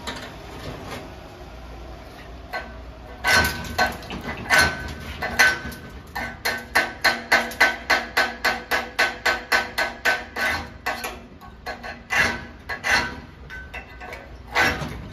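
Chipping hammer knocking slag off a 7018 stick weld on a vertical 1-inch steel test coupon, each blow ringing off the plate. It begins with a few hard strikes, then a fast run of taps at about four or five a second, then a few more strikes near the end.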